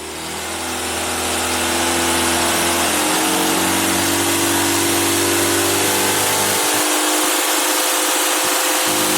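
Mitsubishi 4D34 turbo diesel engine running steadily on a test run, fading in at the start.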